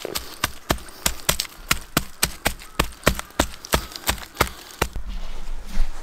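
Gloved hand patting down gravelly soil around the base of a sapling: a quick run of sharp pats, about three or four a second, that stops about five seconds in and gives way to a low rumble.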